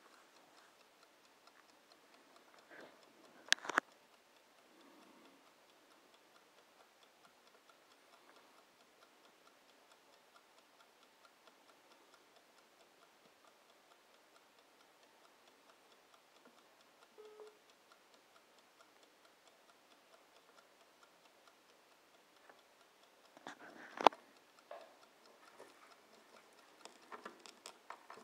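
Bodum mechanical kitchen timer ticking faintly and steadily, broken by a sharp knock about three and a half seconds in and a louder one near 24 seconds. Near the end come scattered small rustling noises as sugar is dug into by hand.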